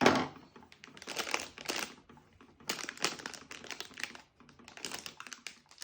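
Plastic packaging being handled and torn open, quick clicky crackles and crinkles coming in three or four short bursts with brief pauses between.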